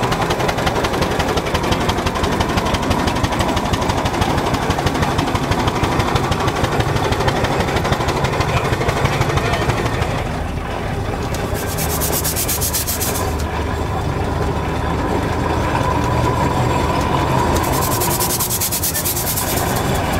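Wallis & Steevens steam ploughing engine running with a rapid, even mechanical clatter. Two bursts of steam hissing come about twelve and eighteen seconds in.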